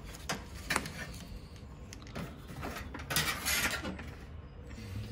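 A refrigerator's rear cover panel being worked loose and taken off by hand: a few light knocks, then a scraping rattle about three seconds in.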